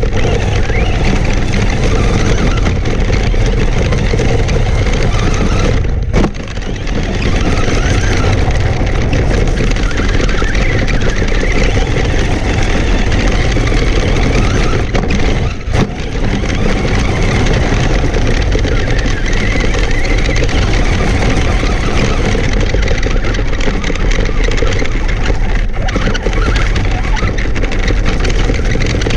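Traxxas Stampede RC monster truck driving fast over gravel, heard from a camera mounted on the truck: tyres crunching through the stones with the motor running, loud and steady. The sound dips briefly twice, about six seconds in and again near the middle.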